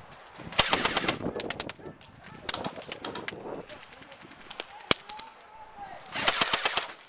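Airsoft guns firing in rapid bursts, three strings of fast clicks a few seconds apart, with a single sharp shot about five seconds in.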